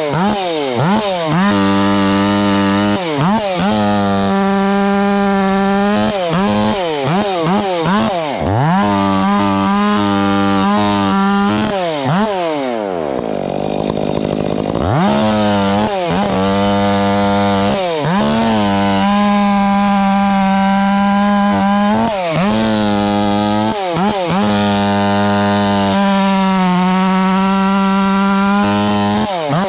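Two-stroke chainsaw held at full throttle while cutting wood, its pitch sagging under load and recovering again and again; near the middle it falls off briefly and then revs back up.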